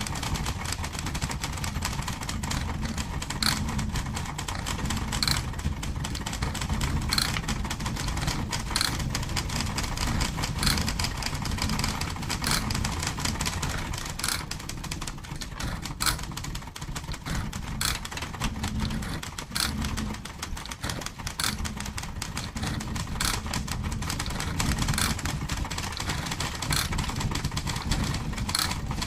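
Typewriter keys striking in irregular runs of sharp clacks, over a steady low rumble.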